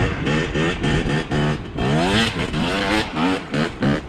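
Two-stroke dirt bike engine revving in short, repeated throttle bursts, about two a second, the pitch rising with each burst.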